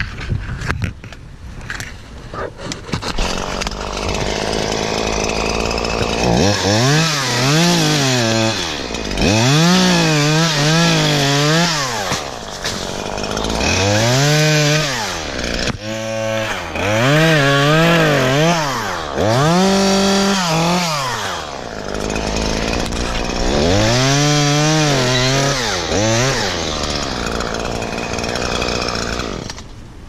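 Stihl MS 150 T small top-handle two-stroke chainsaw cutting palm fronds, its engine revving up and dropping back again and again from about six seconds in.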